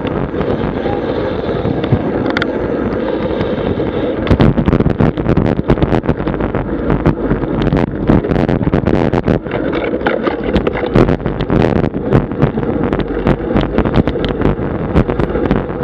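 Wind buffeting the microphone of a camera mounted on a road bike riding at speed, with a steady low rumble of road and tyre noise. From about four seconds in there are many sharp clicks and knocks, like the bike and its camera mount rattling over a rough road surface.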